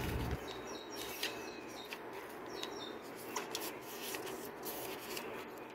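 Glossy paper catalogue pages being turned and smoothed flat by hand: rustling and rubbing of paper with light clicks and taps. Faint bird chirps are in the background in the first few seconds.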